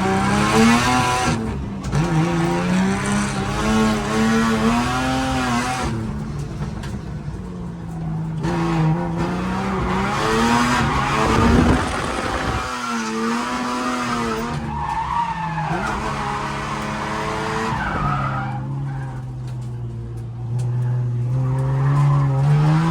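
AU Ford Falcon drift car at full attack, heard from inside: the engine revs up and falls back again and again as the car is thrown into drifts, with the tyres skidding and squealing.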